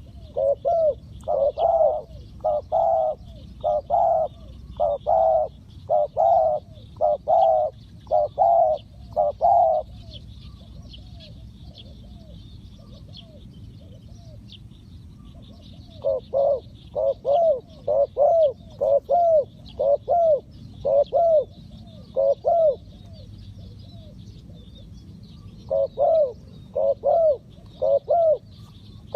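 Spotted doves cooing in three runs of quickly repeated low coos, with pauses of several seconds between runs. Faint high chirping continues in the background.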